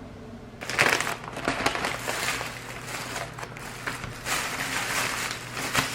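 Packaging rustling and crinkling in irregular bursts as it is handled and opened, with a few light clicks.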